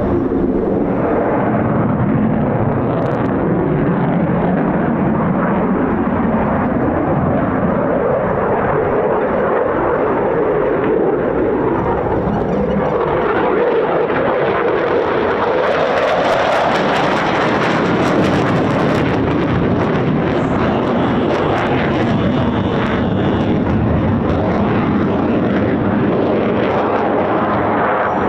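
Eurofighter Typhoon's twin EJ200 turbofans giving a loud, continuous jet roar during a display pass; the engine tone sinks and then climbs again through the middle, and a crackle of sharp clicks joins the roar in the second half.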